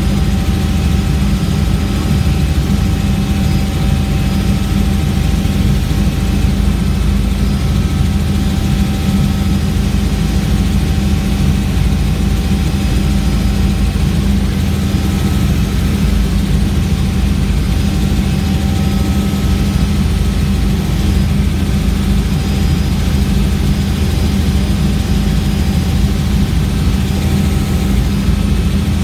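Helicopter engine and rotor noise heard from inside the cabin: a loud, steady drone with a heavy low rumble and a few faint, even whining tones above it.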